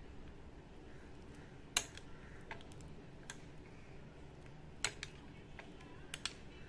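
A steel spoon clinking against a ceramic soup bowl as it stirs the soup: a handful of faint, sharp clicks at uneven intervals over a low, steady background hum.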